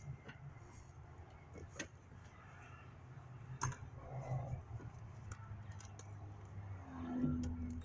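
Scattered light clicks and taps of plastic air-intake parts and clips being handled by hand, over a low steady background hum.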